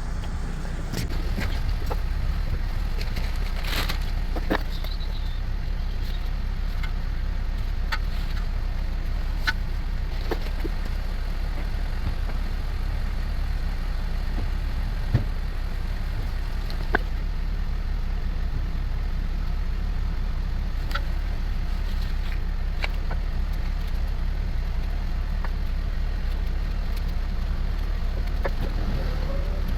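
Scattered sharp clicks and knocks of hand tools working on a car's brake caliper, over a steady low rumble.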